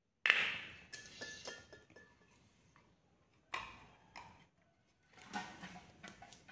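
Knocks and clatter of things being set down and shifted on a small wooden board: one sharp knock about a quarter second in, the loudest, with a brief ringing tone after it, then a few lighter knocks and a burst of handling clatter near the end.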